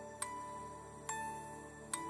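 Soft background music: gently struck, ringing notes about one a second, three in all, each sounding on as the next comes in.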